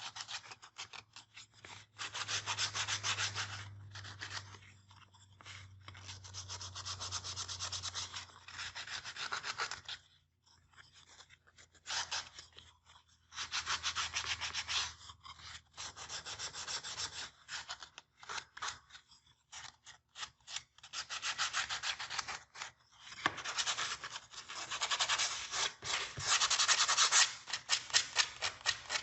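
Sandpaper rubbed by hand over a laser-cut wooden piece, lightly sanding its edges and surface to break the sharp edges and remove laser smoke marks. The sanding comes in several runs of quick back-and-forth strokes, with short pauses between them.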